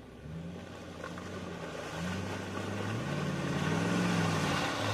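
Off-road SUV's engine revving up and down several times as it drives along a muddy track, growing louder as it approaches.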